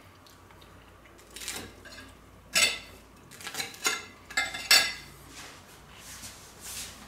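Metal fork clinking and scraping against a plate, a handful of sharp clinks between about one and a half and five seconds in.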